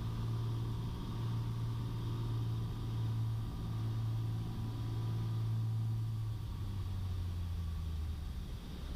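Piper Cherokee Six's piston engine and propeller heard inside the cabin, a steady low drone that drops to a lower pitch about six and a half seconds in as power comes back on the landing rollout.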